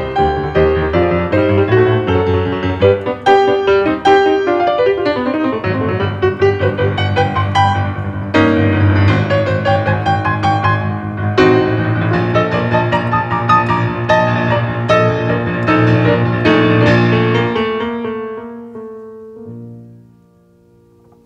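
A grand piano playing a flowing piece of many notes over low held chords. The piece dies away in the last few seconds to a faint ring.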